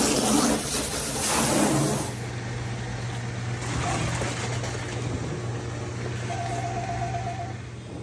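Whirlpool direct-drive top-load washer running with a steady motor hum, its motor coupler newly replaced. It is preceded by about two seconds of rushing wind and handling noise on the microphone.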